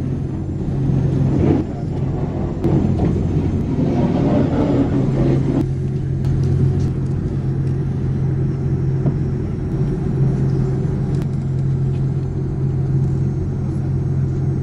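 Steady low drone of an airliner heard from inside the cabin, a constant hum of its engines and air systems. A louder rushing noise rises over it between about one and six seconds in.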